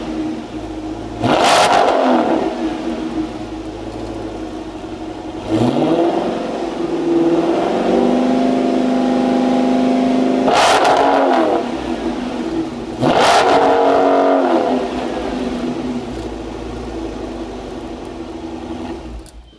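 6.4-litre (392) HEMI V8 of a 2012 Chrysler 300 SRT8 through a Corsa Xtreme exhaust, idling and revved in place. There are three sharp throttle blips, one early and two past the middle, and a longer hold at raised revs in between. The engine stops at the very end.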